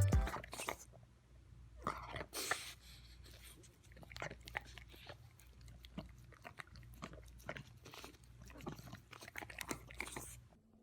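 Irregular soft crunching and clicking, like something being chewed, over a faint steady low hum.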